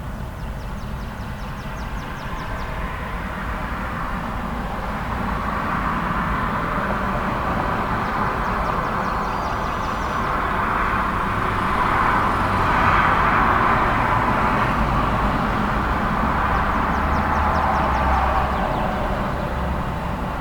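Road traffic on a busy street: cars and trucks passing in a continuous wash of tyre and engine noise over a low rumble. It swells as vehicles come close and is loudest about two-thirds of the way through.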